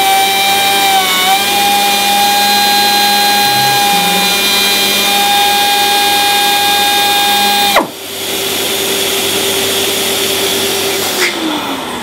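Air-powered step sanding tool running at a steady high whine while it cuts a 0.1 mm step into a composite surface, dipping briefly in pitch about a second in. The tool cuts off abruptly near eight seconds. The auto-start dust extractor runs on for a few seconds, then winds down with a falling pitch near the end.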